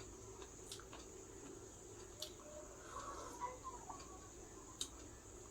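Faint mouth clicks and smacks of someone eating a rice-and-curry meal, a few sharp ones spaced a second or more apart. A brief, faint wavering call-like sound comes near the middle.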